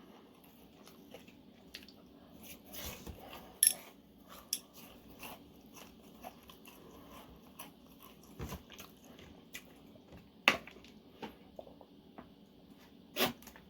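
A person chewing and biting crunchy food close to the microphone: scattered crisp crunches and mouth clicks, with a few louder crunches about three and a half, ten and thirteen seconds in.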